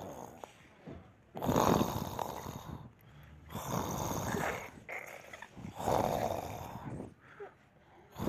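A man snoring: three long snores, about two seconds apart.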